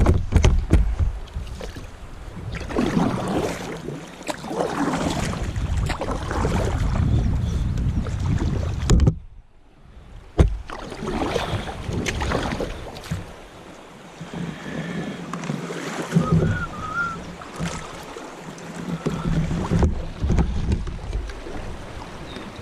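Kayak paddle strokes splashing in moving river water, with wind buffeting the microphone and a few sharp knocks, and a brief lull about nine seconds in.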